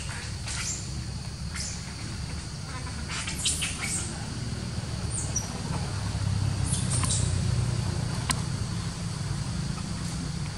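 Short, high, falling chirps, a few at a time and thickest about three to four seconds in, over a steady low rumble and a faint steady high whine. A single sharp click sounds just past eight seconds.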